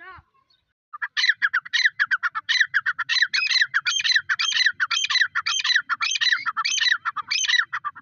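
Grey francolin calling: a loud, fast series of shrill, repeated down-slurred notes in rhythmic phrases, starting about a second in.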